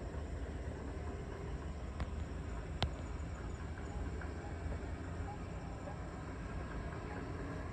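Steady outdoor ambience of a low rumble under a faint hiss, with two sharp clicks about two and three seconds in.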